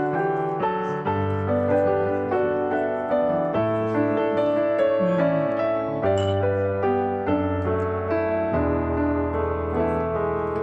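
Background piano music: a flowing melody over held bass notes that change every two to three seconds.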